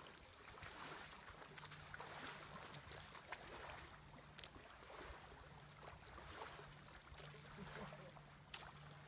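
Near silence: faint riverside ambience with light water lapping and small splashes. A faint low steady hum comes in about a second and a half in.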